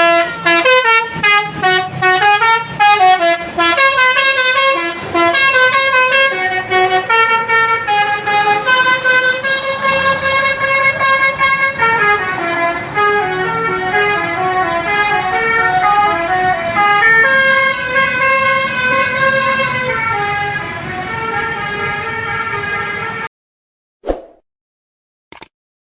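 Bus telolet horn (Basuri musical horn) playing a long, loud melody of held notes stepping up and down, several tones sounding together. It cuts off suddenly about two seconds before the end, leaving only a few faint short blips.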